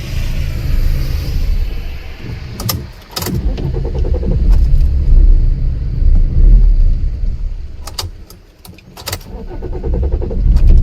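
Car engine stalling and being restarted twice: the running engine dies down, the ignition key clicks, the starter cranks briefly and the engine catches again. The engine won't hold an idle and keeps stalling.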